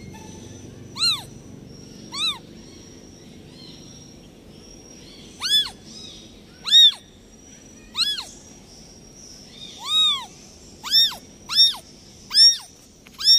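Newborn kitten mewing: about ten short, high-pitched cries, each rising and then falling in pitch, coming more often toward the end.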